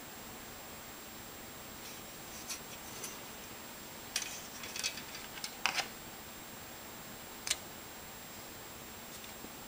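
Plastic model-kit sprues clicking and clattering as they are handled and set down on a cutting mat: a cluster of light, sharp clicks midway and a single click a couple of seconds later. Underneath is a steady hiss with a thin high whine from the old compact camera's recording.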